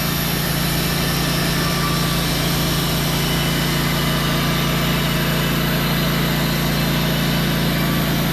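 Sawmill engine running steadily at a constant pitch.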